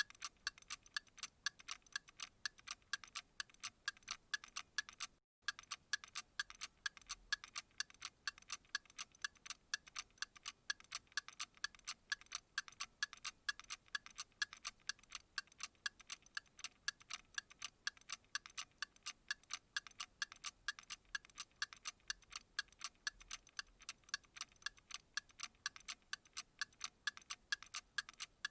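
Steady, even ticking at several crisp, high ticks a second, with a brief dropout about five seconds in.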